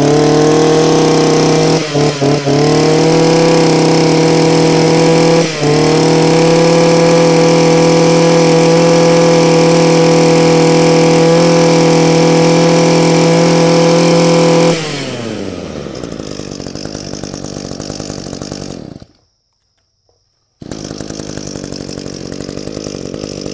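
Echo 26cc two-stroke brush cutter engine on a test run. It is held at high revs with a couple of short dips in the throttle, then drops back to idle about 15 seconds in. It goes silent briefly near 19 seconds and is idling again a second and a half later.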